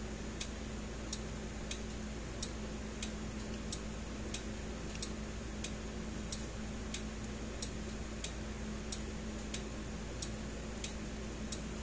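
Steady, evenly paced ticking, about three ticks every two seconds, over a low steady hum.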